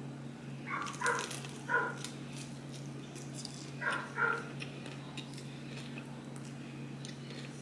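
Dog barking in the background, five short barks in two bunches: three in the first two seconds, then two about four seconds in.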